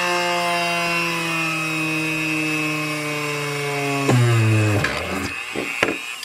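A high-speed rotary tool running as it drills a small hole through a plastic battery cap. Its motor pitch sinks slowly under the load, then drops sharply about four seconds in as the motor winds down. A few clicks follow near the end.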